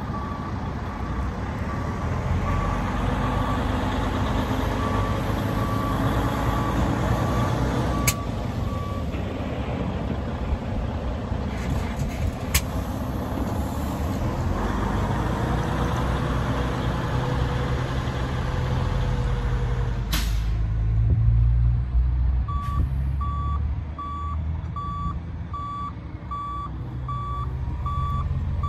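Freightliner Cascadia semi tractor's diesel engine running as it manoeuvres, with its reversing alarm beeping at about one and a half beeps a second for the first several seconds and again from about two-thirds of the way through as it backs up. A short sharp air hiss comes about two-thirds through, just before the engine grows louder.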